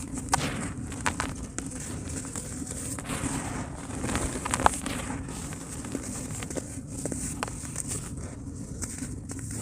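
Dry pure cement crumbling in a tub, with irregular soft crackles and small sharp clicks over a steady low hum; the sharpest click comes about four and a half seconds in.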